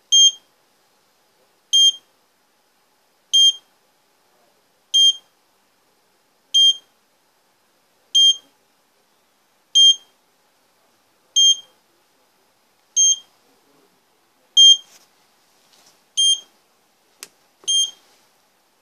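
Internal buzzer of an AVISS RP Adresse IV fire-alarm repeater panel giving short, high beeps about every 1.6 s, twelve in all: the audible warning for a mains-power fault after its supply was unplugged. A faint click sounds near the end.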